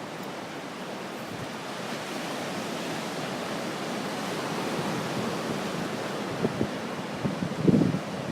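Sea surf washing onto the shore as a steady rush that slowly grows louder, with gusts of wind buffeting the microphone near the end.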